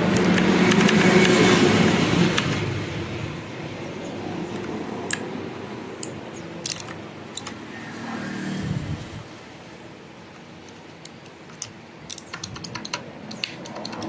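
Mechanical keyboard keys clicking: a few scattered keystrokes in the middle, then a quick run of taps near the end. A louder passing rush with a low hum, like a vehicle going by, swells and fades over the first few seconds and is the loudest sound.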